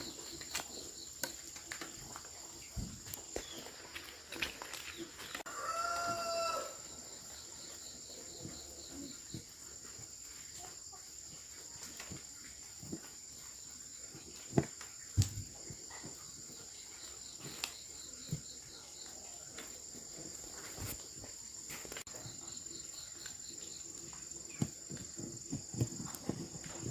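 A rooster crows once, about six seconds in, a single arched call. Scattered light clicks and knocks and a steady high-pitched whine run underneath.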